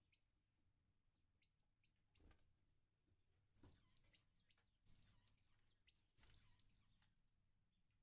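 Faint, short, high chirps of finches, with three louder calls a little over a second apart from about three and a half seconds in, and a few soft knocks.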